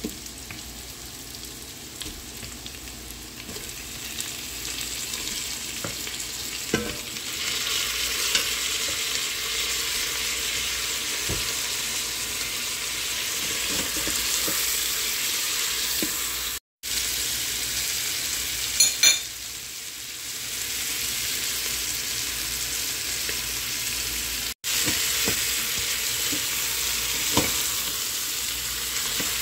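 Carrots, onion and meat sizzling in the stainless inner pot of an electric multicooker on sauté, stirred with a spatula, with scattered clicks and scrapes of the utensil against the pot. The sizzle grows louder about a quarter of the way in and breaks off twice, briefly.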